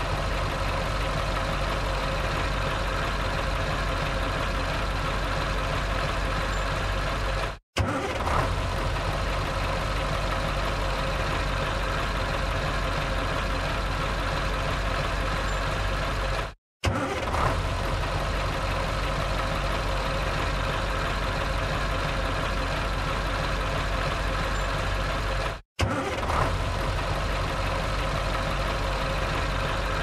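Truck engine starting with a short burst, then idling steadily. The same recording repeats about every nine seconds, each time after a brief moment of silence.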